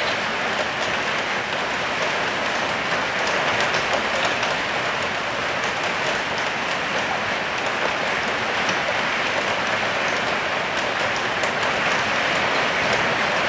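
Rain falling and spattering steadily on surfaces, a continuous hiss with fine drops ticking through it.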